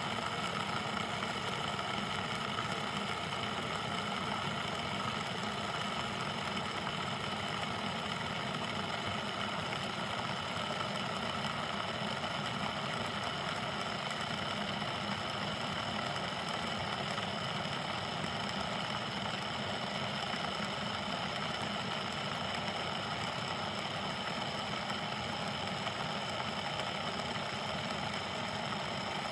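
Water kettle heating water: a steady, unchanging hiss with faint steady tones running through it.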